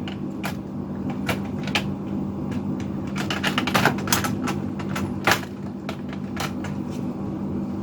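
Irregular light clicks and taps of small computer hardware being handled, over a steady low hum.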